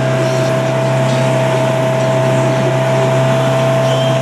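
Motorboat engine running steadily at speed: a constant low drone with a steady higher whine over it, amid rushing noise.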